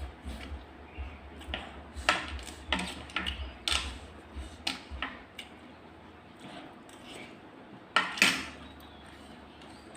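Tableware clinking and clicking during a meal: scattered light clinks of utensils on dishes, with two louder knocks close together about eight seconds in.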